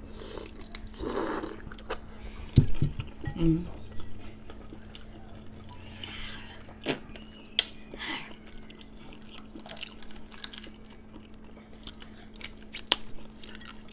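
Close-miked chewing and wet mouth sounds of someone eating boiled seafood, with scattered small clicks. A few low thumps come about two and a half to three and a half seconds in.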